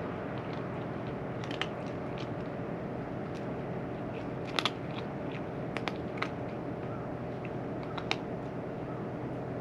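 A cat crunching dry food: scattered sharp crunches at an uneven pace, the loudest about halfway through, over a steady background hum.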